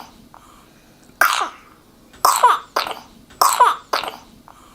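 An infant's wet cough, with phlegm or mucus, a sign or symptom of pneumonia. It comes as five short coughs, one single and then two pairs, each falling in pitch.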